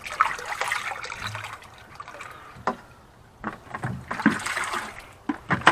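Water running from a hose into a tub, splashing in uneven spells, with a few sharp knocks.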